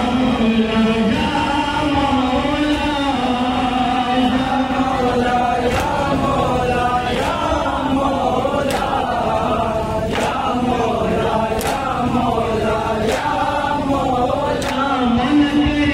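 A group of men chanting a devotional lament together, sung through a microphone. From about six seconds in, sharp hand strikes land in time about every one and a half seconds.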